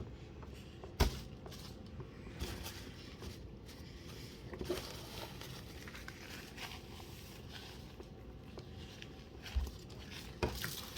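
Someone chewing a mouthful of burger, with a few short sharp knocks and clicks from handling the food and box, the loudest about a second in, over a steady low background hum.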